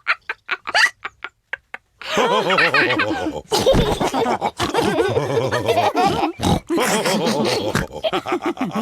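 Cartoon pig characters laughing together, several voices at once, mixed with pig snorts and oinks. About two seconds in, the laughter takes over from a quick run of short, quiet clicks at about five a second.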